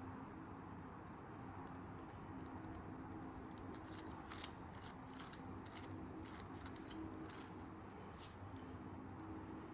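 Plastic layers of a 5x5x5 Rubik's cube being turned quickly: a run of faint, irregular clicks and rattles, over a faint steady hum.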